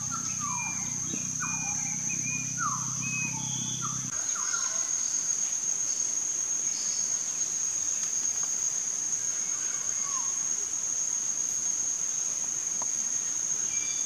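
Steady high-pitched insect drone, with a quick run of short, falling bird calls over the first four seconds and only an occasional single call after that.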